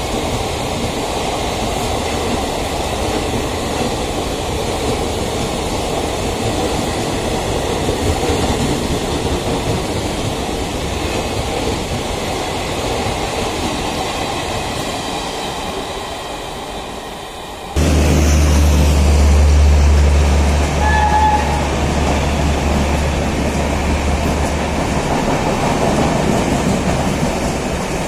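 Mumbai suburban local electric train running, heard from aboard: a steady rumble and rattle of wheels on track. About eighteen seconds in, the sound jumps abruptly to a louder, deeper steady hum.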